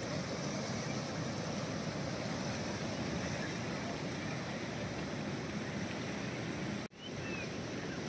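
Steady rushing roar of a waterfall's falling water, even and unbroken, cutting out for an instant about seven seconds in before carrying on.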